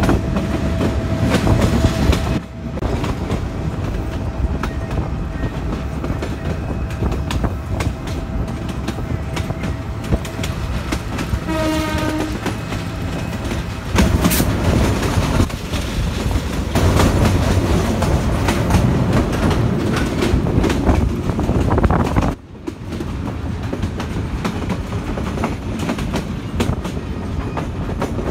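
Passenger train of PT Inka-built coaches rolling past at speed, its wheels clattering on the rails in a continuous rumble. A brief horn note sounds about twelve seconds in.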